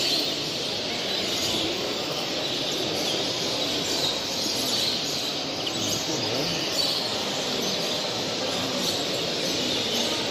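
Many caged show birds, European greenfinches among them, chirping and singing at once in a dense, continuous chatter over a steady background haze.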